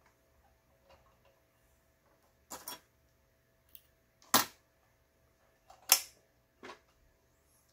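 Four short, sharp clicks a second or more apart, the middle two loudest, from hands handling the needle area of a Riccar BL3800 sewing machine while it is being threaded. The machine is not running.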